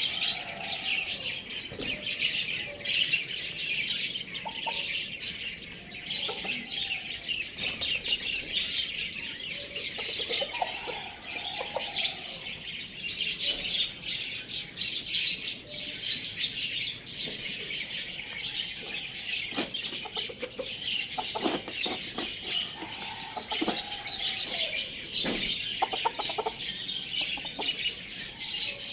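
Many small birds chirping and chattering continuously, with a few lower chicken calls from time to time.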